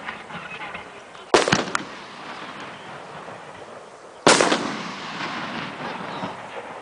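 Homemade aerial firework shells going off. A loud bang comes about a second in, followed closely by a smaller one. A second loud bang comes about three seconds later and dies away in a long echo.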